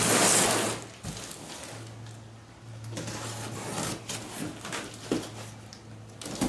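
Packages being handled and moved: a loud scraping rustle in the first second, then quieter rustles and a few sharp knocks, over a steady electrical hum.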